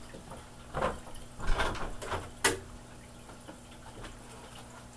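A few short knocks and rustles in the first half, like plastic toy blasters being picked up and handled, followed by only a faint steady hum.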